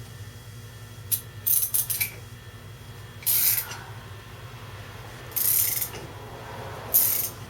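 Chain riveting tool being cranked down with a wrench to press the master-link rivet of a motorcycle drive chain: a cluster of metallic clicks about a second in, then three short rasping strokes.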